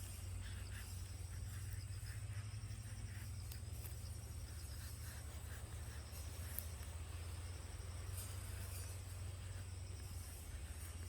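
Insects chirping over a steady low hum, with a few faint clicks.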